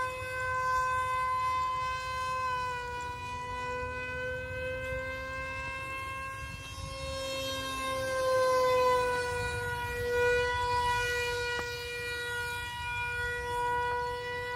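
Electric motor of an RC foam model Su-27 jet in flight, a steady whine that dips and rises in pitch as it flies past and the throttle changes, with a low rumble underneath.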